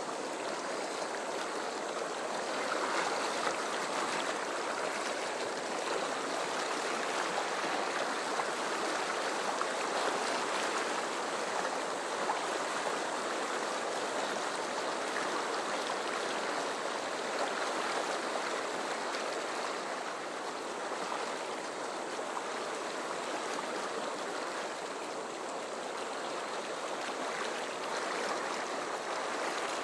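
Fast river current rushing through rapids: a steady, unbroken hiss of whitewater.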